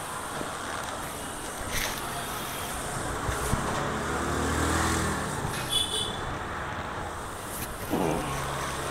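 Road traffic, with a motor vehicle's engine passing about midway, swelling and then fading, and a few sharp clicks.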